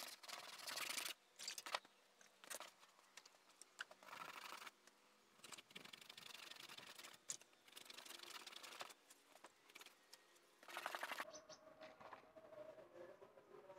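Hand wet-sanding a painted plastic car bumper with 800-grit sandpaper: bursts of quick rubbing strokes, a few seconds of sanding at a time, which stop about 11 seconds in.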